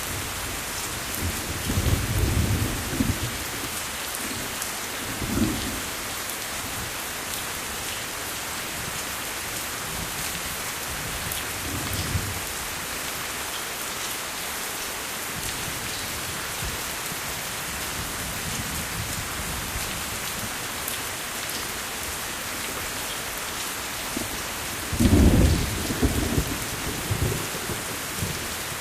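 Steady rain falling, with thunder rumbling several times; the loudest rumble comes near the end.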